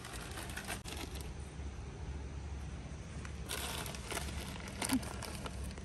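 Plastic packaging crinkling in two bursts, one in the first second and another about three and a half seconds in, over a steady low rumble.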